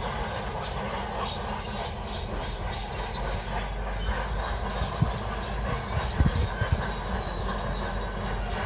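Crawler bulldozer working, its engine running under the steady squeal and clank of its steel tracks, with a few sharp knocks about five and six seconds in.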